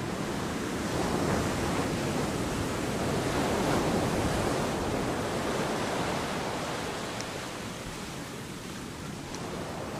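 Ocean surf washing onto a beach: a steady rush that swells to its loudest about four seconds in and then eases off.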